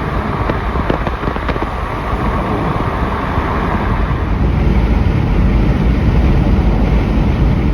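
Tyre, road and wind noise of a car driving at highway speed, heard from inside the car, growing a little louder about halfway through.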